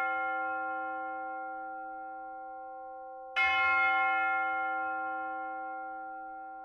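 A large church bell tolling slowly. A strike rings out and fades, and the next identical strike comes about three and a half seconds in and decays in turn.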